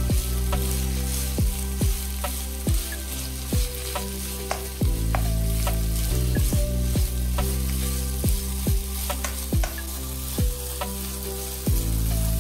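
Grated potato sizzling in oil in a non-stick pan while it is stirred with a wooden spoon, with short knocks and scrapes. Background music with low held notes plays underneath.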